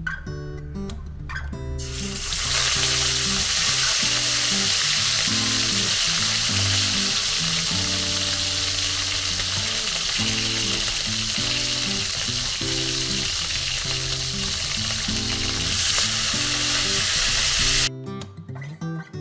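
Marinated milkfish (bangus) frying in hot oil in a pan, a loud steady sizzle that starts about two seconds in and cuts off suddenly near the end. Acoustic guitar background music plays underneath.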